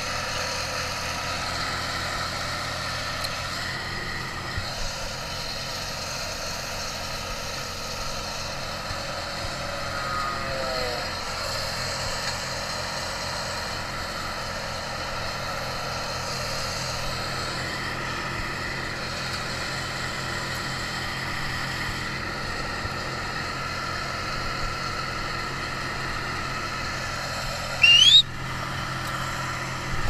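An engine idling steadily. A short, loud rising whine comes about two seconds before the end.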